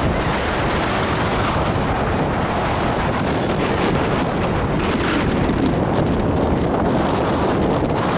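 Wind buffeting the microphone: a loud, steady rushing rumble.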